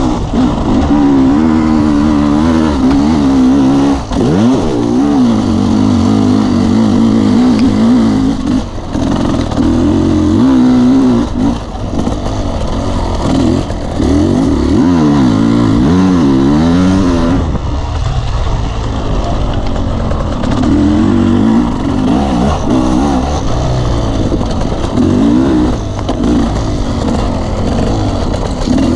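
Off-road dirt bike engine under load on a trail, its pitch rising and falling over and over as the throttle opens and closes, with a few brief drops where the throttle is shut off.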